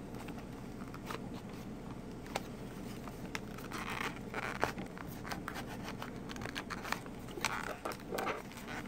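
Handling noise from a small stainless-steel keychain multi-tool: light metal clicks, scrapes and rustling, with a cluster of scratchy sounds about four seconds in and another near the end.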